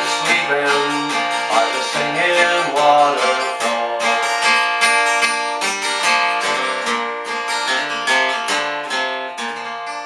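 Yamaha acoustic guitar strummed through a song's closing chords, the strums growing gradually softer toward the end.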